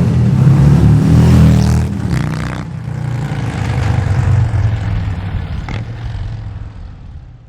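Harley-Davidson Milwaukee-Eight V-twin running through Rinehart Racing 4-inch slip-on mufflers, revved up, dropping back about two seconds in, rising briefly again and then fading out near the end.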